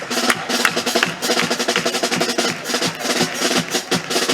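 Chirigota carnival band music: snare drum playing a quick, steady rhythm with bass drum under held instrument notes.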